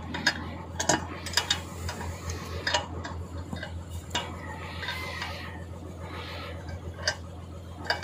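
Small irregular metallic clicks and taps as a hose nozzle fitting is threaded by hand into a truck's 24 V air horn relay valve, over a steady low hum.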